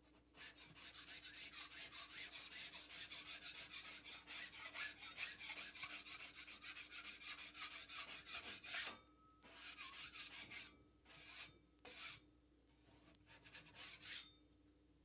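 Wide drywall knife scraping high spots off a dried joint-compound patch, in quick, even strokes for about nine seconds. It then stops and starts again in several shorter bouts.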